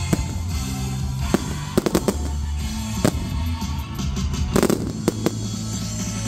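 Firework display: fireworks going off in irregular sharp bangs, about eight of them, several close together a little past the midpoint, over loud music with a steady bass line.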